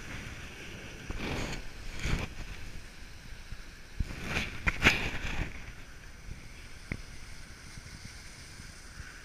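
Skis sliding over groomed snow, with a steady hiss and a few louder scraping swooshes of ski edges turning: about a second in, around two seconds, and a longer stretch from about four to five and a half seconds. Wind rushes over the microphone.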